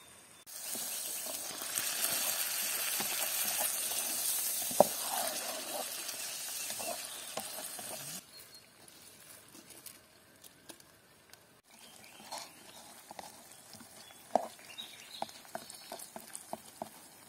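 Meat and onions sizzling loudly in a cooking pot, a hiss that starts suddenly about half a second in. After about 8 seconds it gives way to quieter scraping and clicks of a wooden spatula stirring the pot.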